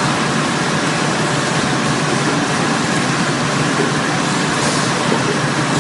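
Fully automatic soft-pack facial tissue packaging machine running: a steady, even mechanical din with no clear beat.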